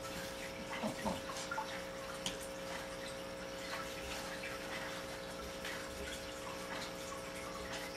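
A steady watery hiss with a constant electrical hum under it, and a few faint clicks about a second in.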